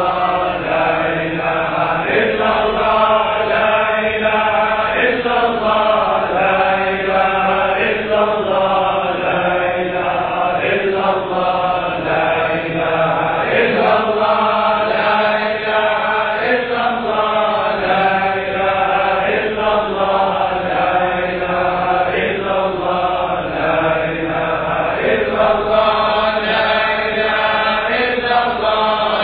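Voices chanting Sufi dhikr in Arabic, with a short devotional phrase repeated over and over in a steady rhythm.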